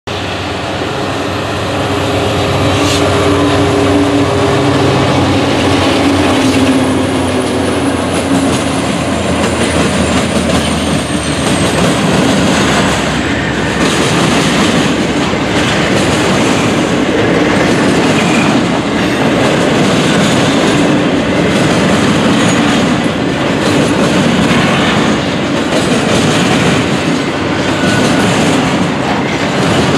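Norfolk Southern double-stack intermodal freight train passing close: the diesel locomotives' engines drone through the first several seconds, then a continuous rumble of the container well cars rolling by. The steel wheels clatter over the rail joints about once a second.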